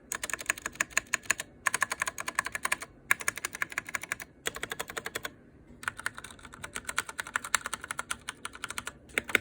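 Fast typing on a Ducky One 2 Mini mechanical keyboard with brown tactile switches and freshly fitted keycaps: rapid runs of key clacks in bursts of about a second, broken by short pauses.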